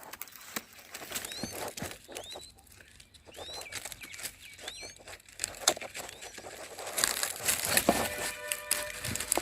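A bird chirping, short rising calls repeated about four times, among scattered clicks and rustling. Near the end a steady hum of several held tones comes in.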